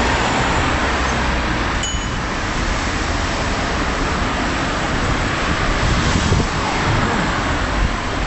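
Steady city street noise heard from a moving bicycle: car traffic mixed with wind rushing over the microphone as a low rumble. A short high tone sounds once about two seconds in.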